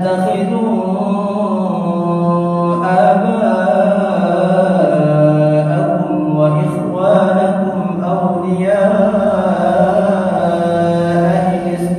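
A young imam's voice chanting Qur'an recitation in a melodious style through a microphone: long held notes that step up and down in pitch, with brief breaths between phrases.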